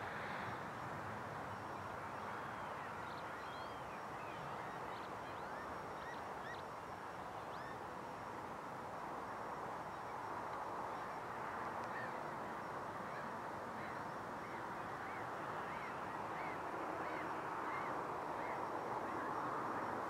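A flock of whooper swans calling, a steady chorus of many overlapping calls.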